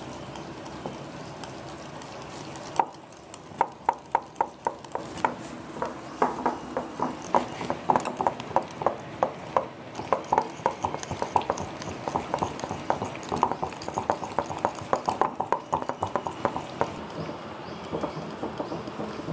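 Beaten eggs and sautéed vegetables being stirred together in a bowl, the utensil knocking rapidly and unevenly against the bowl, starting about three seconds in.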